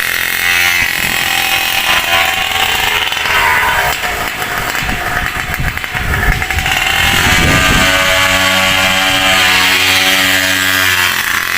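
Small two-stroke scooter engine revving through a tuned expansion-chamber pipe with no arrester (silencer) fitted. The revs climb about seven seconds in and hold high for a few seconds.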